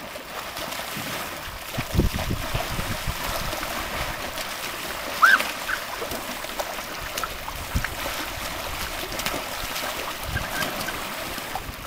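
Lake water splashing and sloshing around a floating foam water mat as people scramble and wrestle on it, with a few dull thuds of feet and bodies on the mat. A short high-pitched cry about halfway through.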